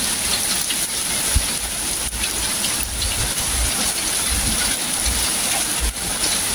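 Heavy rain pouring onto a flooded street and parked cars: a steady, loud hiss, with occasional low rumbles.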